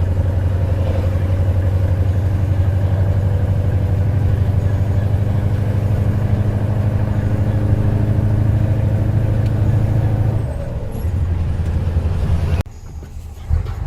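Scania 143H 450 V8 diesel engine running on an open exhaust pipe: a steady, deep, pulsing exhaust note. It eases slightly about ten seconds in, then cuts out suddenly and returns about a second later.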